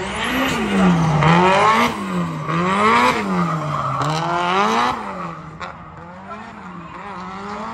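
Drift car engine revving up and down about once a second over tyre squeal as it slides through a corner; about five seconds in the tyre noise fades and the engine settles quieter and steadier.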